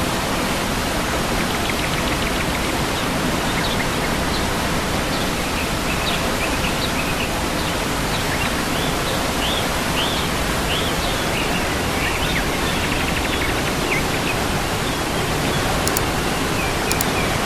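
Waterfall: a steady rush of falling water, with faint short bird chirps over it.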